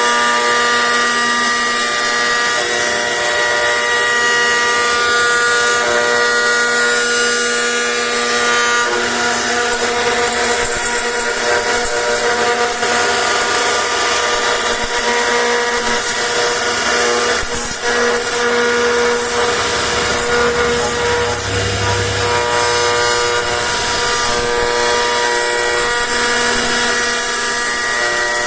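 CNC router spindle running steadily as it carves wood, a constant whine with the hiss of the bit cutting.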